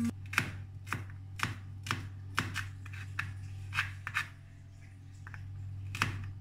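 Kitchen knife chopping garlic on a plastic cutting board, about two strokes a second, with a short pause before one more cut near the end.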